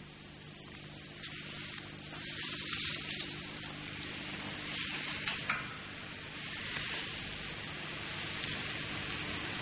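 Steady hiss with a low mains hum underneath: the noise floor of an old videotape soundtrack. A couple of faint clicks come about halfway through.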